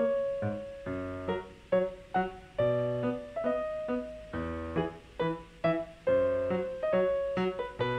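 Background music played on a keyboard: a quick melody of struck notes, each ringing and fading.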